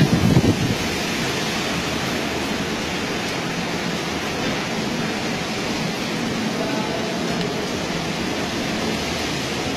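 Typhoon wind and rain as a steady, loud rush of noise, with a louder low gust in the first second.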